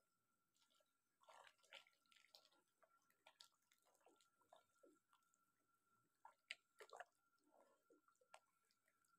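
Very faint wet squelches, splashes and drips as whole-wheat flour slurry is poured into chicken stock and stirred with a wooden spatula, the nihari gravy thickening in the pan. A few sharper clicks stand out about two-thirds of the way in.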